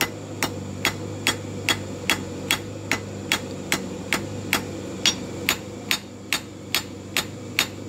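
A blacksmith's hammer striking a red-hot half-inch square steel bar on an anvil in an even rhythm of about two and a half blows a second. The blows spread the bar's end out to widen a forged leaf.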